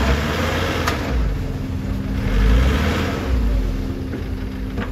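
Dump truck's diesel engine running and revving as its bed is tipped to unload soil, with a louder rushing swell about halfway through.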